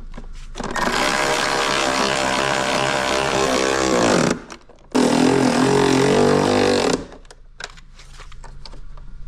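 Milwaukee cordless ratchet running in two bursts, about three and a half seconds and then about two seconds long, tightening a bolt at a car battery. The motor's pitch drops at the end of the first burst as it takes up the load of the tightening bolt.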